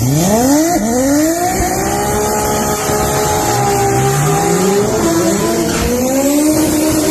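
Car engine revving hard under acceleration. The pitch climbs steeply over the first second and a half and holds high, then dips about five seconds in and climbs again.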